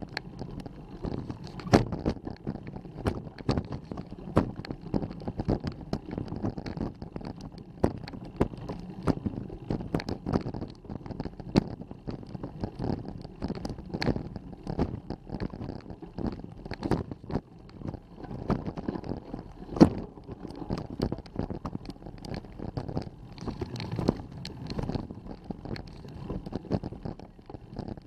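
Irregular knocks and rattles of a bike-mounted action camera riding over a rough track, over a low rumble, with some wind on the microphone.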